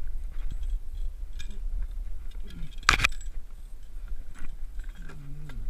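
Fishing gear being handled on a kayak, a landing net and rod: small rattles and clicks over a steady low rumble, with one sharp knock about three seconds in.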